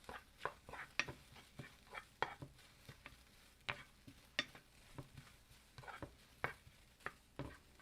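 Utensil scraping and tapping in a frying pan as chopped green onion is stirred over high heat, in irregular strokes about one or two a second, with a faint sizzle underneath.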